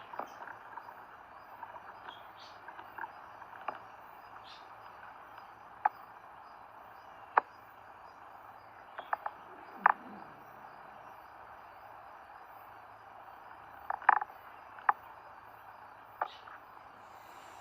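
Steady hiss of rain falling, with a few sharp ticks scattered through it.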